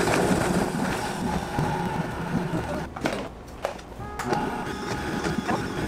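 High-speed countertop blender running on a thick, low-liquid mix of frozen fruit and a little oat milk, with the tamper pushed down into the jar to keep the stiff mixture turning. The motor noise cuts out briefly twice about halfway through.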